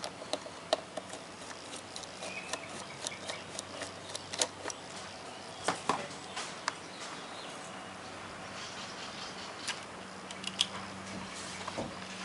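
Irregular light clicks and taps of small parts being handled, over a steady faint hum.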